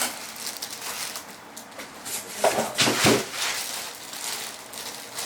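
Packaging rustling and crinkling as a backpack is pulled out of its box, with louder scraping rustles about two and a half to three seconds in.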